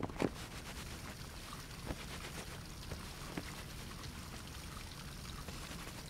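Faint indoor swimming-pool ambience: steady trickling and lapping of pool water, with a few faint ticks.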